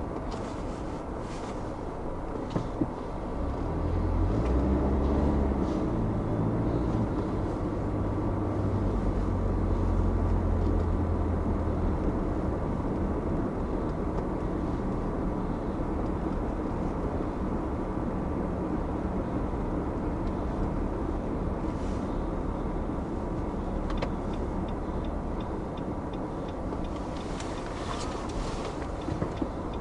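Car driving, heard from inside the cabin: steady engine and tyre noise on the road, with the engine's hum swelling as it picks up speed a few seconds in. A few short clicks come near the end.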